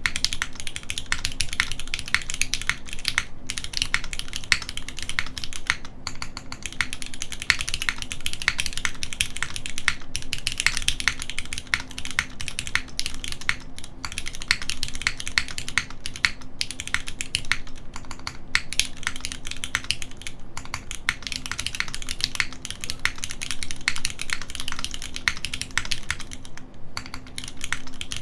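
Continuous fast typing on a custom mechanical keyboard with lubed, retooled Cherry MX Black linear switches on an aluminum plate, friction-fit o-ring mount, no foam, with GMK keycaps: a dense stream of keystroke clacks with a few short pauses.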